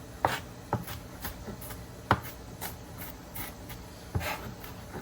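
Kitchen knife cutting on a cutting board: irregular strokes, a few sharper knocks among lighter taps and scraping.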